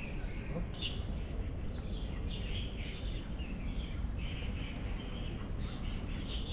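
Small birds chirping in short, repeated calls over a steady low outdoor rumble.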